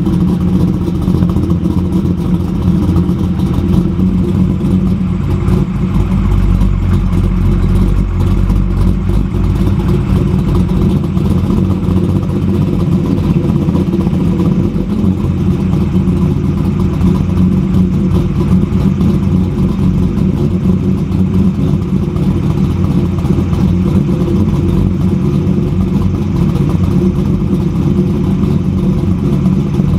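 Corvette C5's LS1 V8 with a BTR Stage 3 cam, through Speed Engineering headers, an X-pipe and a Borla S-type axle-back exhaust, idling steadily, heard at the exhaust tips.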